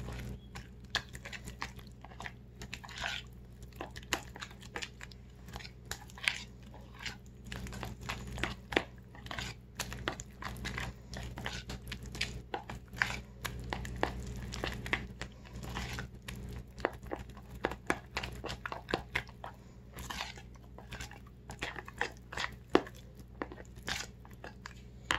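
Metal fork stirring and beating a thick, lumpy flour, water and egg batter in a mixing bowl: irregular clicks of the fork against the bowl mixed with soft wet squelching of the batter.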